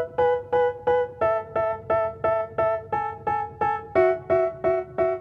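Background music: a piano intro of evenly repeated chords, about three a second, shifting to a new chord twice.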